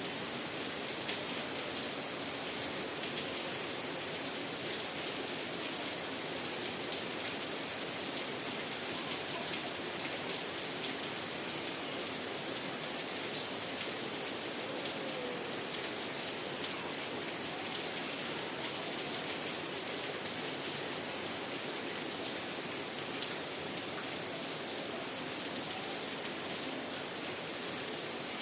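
Heavy tropical rain falling steadily, with water pouring from a roof gutter and scattered sharp drop splashes over an even hiss.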